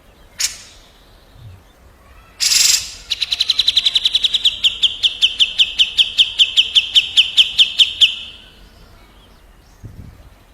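A songbird's rapid trill: a brief sharp note, then a harsh burst running straight into a long run of quick repeated notes, about eight a second, for some five seconds before it stops abruptly.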